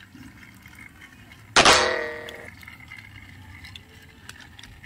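A single loud metallic clang about a second and a half in, ringing on and dying away over about a second. Faint small clicks of a plastic toy train being handled as its batteries are fitted.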